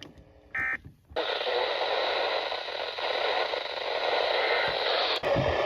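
A short electronic data burst from a weather radio's alert system, the kind sent as an end-of-message tone. About a second in, the radio breaks into loud, steady static hiss, with a click and a shift in the hiss near the end.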